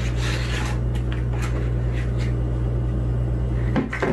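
A steady low hum, with faint scraping and light clicks of a plastic measuring cup scooping and levelling flour in a bowl.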